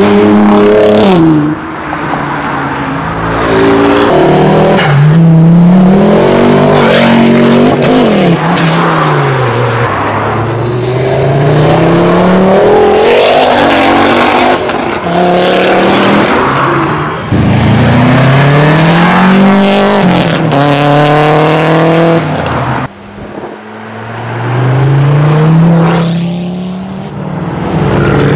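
Several performance cars accelerating hard away one after another, their engines revving up through the gears, the pitch climbing and dropping back at each upshift. Among them are a Nissan GT-R, a Ford Focus RS and a Mercedes C63 AMG.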